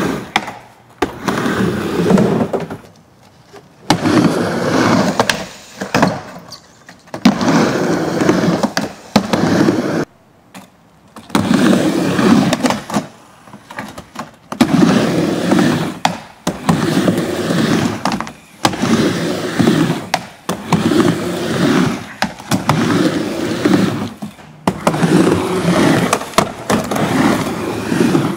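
Skateboard rolling back and forth on a plywood quarter-pipe ramp: runs of wheel rumble a second or two long, broken by short gaps and sharp clacks of the board striking the ramp.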